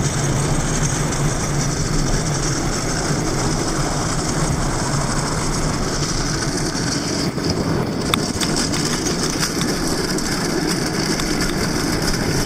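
Hot Wheels XL pedal go-kart rolling fast downhill: a steady rumble of its wheels on asphalt mixed with wind rushing over the camera microphone. A few sharp clicks come about eight seconds in.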